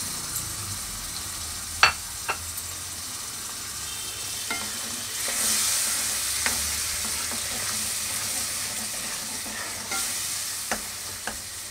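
Tomato purée and masala sizzling in hot oil in a kadhai while a steel spatula stirs it. A few sharp clicks of the spatula on the pan come through, the loudest about two seconds in, and the sizzle swells about five seconds in.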